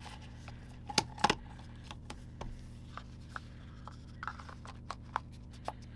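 Plastic marker pens being handled and slid back into their box: light rubbing with scattered small clicks and knocks, the two loudest about a second in.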